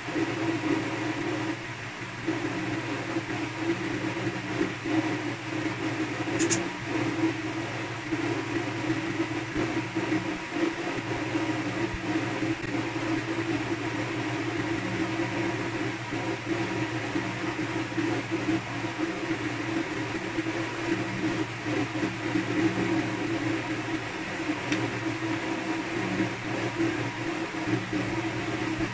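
Steady mechanical hum from a running machine, with a short faint click about six and a half seconds in.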